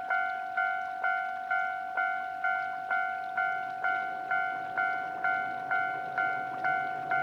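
Japanese railway level-crossing warning bell ringing, a decaying ding repeating about twice a second, the signal that a train is approaching. A low hum builds underneath in the second half.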